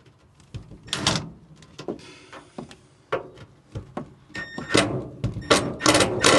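Scraping, knocking and clattering of metal and trim parts being pried and pulled at by hand, with a short squeak about four and a half seconds in.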